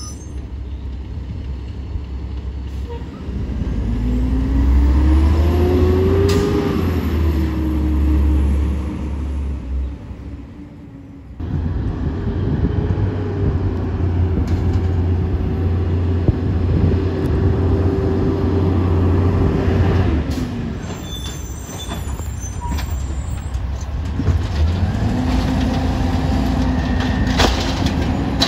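Automated side-loader garbage trucks at work: the diesel engine revs up to drive the hydraulics, and a steady pump whine rises and then holds each time the lift arm or packer runs. This happens three times, with a sudden break about 11 seconds in.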